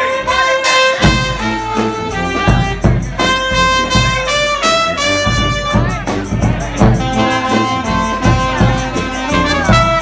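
Live brass band playing an instrumental passage: sousaphone, saxophone and trumpets in held, stepping notes over a steady bass drum beat.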